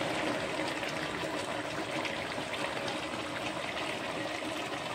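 Pork afritada, pork and vegetable stew in tomato sauce, simmering in a pan: the thick sauce bubbles steadily with many small pops.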